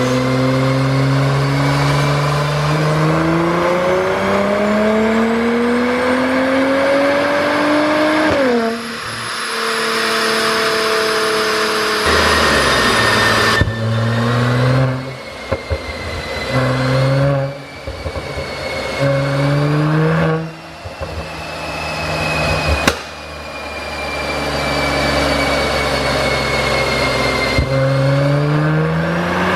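Mercedes-AMG GLC 43's twin-turbo V6 with a pop-and-crackle exhaust tune: one long pull with the note climbing, then a drop, then a series of short revs that each cut off sharply with popping on lift-off.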